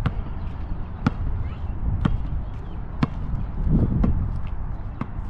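Basketball bouncing on an asphalt court, a sharp bounce about once a second, as in a steady dribble, over a steady low rumble.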